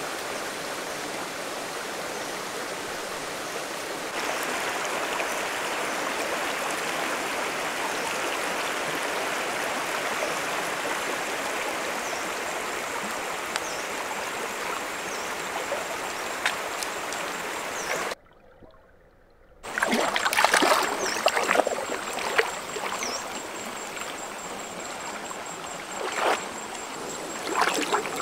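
Shallow, rocky river running steadily over stones. About 18 seconds in the sound cuts out for a second and a half, then the water returns louder, with irregular splashes of someone wading through it.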